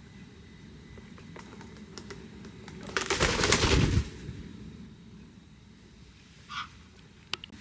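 Cockatiels' claws tapping as they walk on a hard surface: scattered light taps, then a loud, dense run of quick taps lasting about a second, starting about three seconds in, and a single sharp tap near the end.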